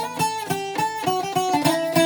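Greco D-70 acoustic guitar being played: a quick run of plucked notes, several ringing over one another.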